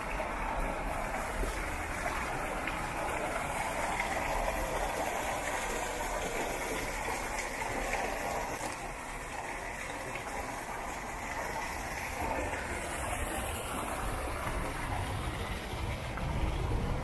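Steady rush and splash of water pouring from small spouts into a pond.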